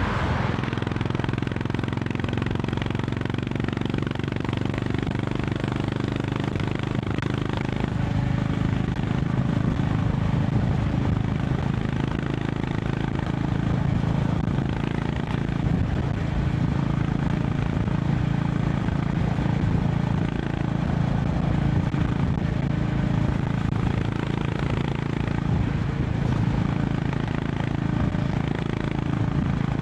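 Honda CB350 RS single-cylinder engine and exhaust running at a steady cruise, with a rushing haze of wind and road noise over it.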